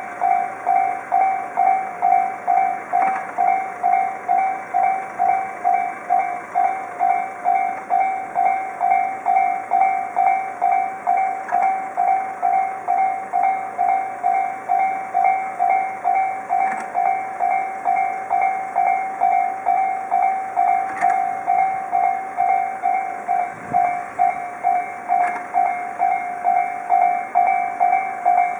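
Japanese railroad crossing's electronic warning bell ringing, a repeated 'kan-kan' tone about twice a second, which signals that a train is approaching and the crossing is closed.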